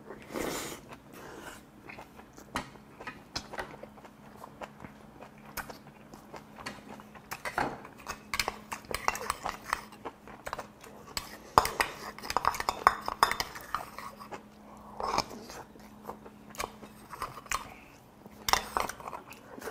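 Close-miked chewing and smacking of braised pork back ribs with kimchi and rice. A wooden spoon clinks and scrapes against a small stainless steel rice bowl, with the densest run of chewing and clinks about halfway through.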